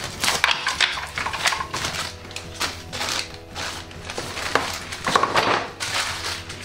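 Padding sheet crinkling and rustling as it is pulled out of a Styrofoam cooler box, with short handling scrapes, over background music.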